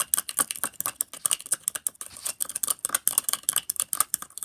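A mixing tool stirring two-in-one soap and salt in a mixing bowl as the mixture thickens into slime: rapid, irregular clicks and scrapes of the tool against the bowl, with wet squishing.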